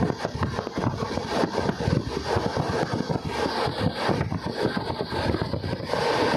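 Passenger train running at speed: a steady rumble with dense, rapid rattling and clatter from the wheels and carriage.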